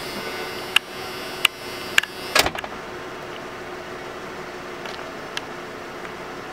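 1994 Ford F-150 pickup idling with a steady hum, broken by a few sharp clicks and then a loud thump about two and a half seconds in, typical of a truck door being opened and slammed.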